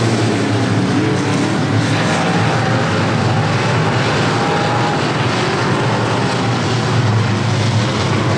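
A field of dirt-track race cars running laps together, their engines loud and continuous, with the pitch of individual cars rising and falling as they pass.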